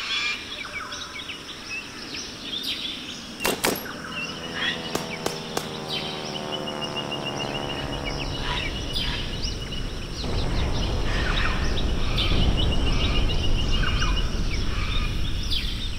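Jungle soundscape: bird chirps and short trilled calls over a steady background, with a few sharp clicks about three and a half seconds in. A drawn-out falling tone passes in the middle, and a low rumble swells from about ten seconds.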